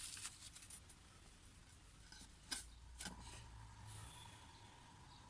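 Near silence, with a few faint handling clicks and rustles from work on a small painted canvas. A faint steady tone comes in about three seconds in.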